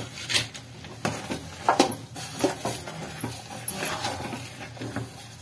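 Steel ladle stirring thick semolina halwa in a steel kadhai, scraping and clinking against the pan in irregular strokes.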